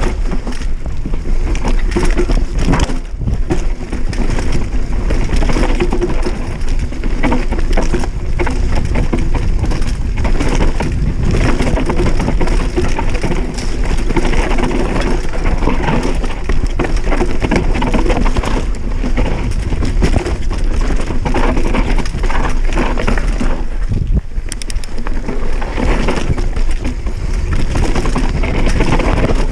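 Giant Reign full-suspension enduro mountain bike ridden down a steep, rocky dirt trail: tyres crunching over loose stones and dirt, with a continuous clatter of knocks and rattles from the bike as it goes over rocks.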